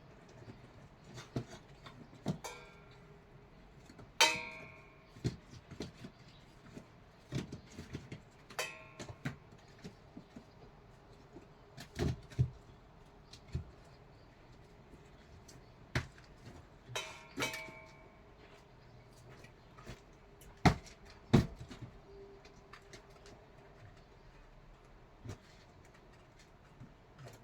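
Kitchen utensils, pots and dishes clinking and knocking in irregular, scattered strikes, a few of which ring briefly, with two sharper knocks about three quarters of the way through.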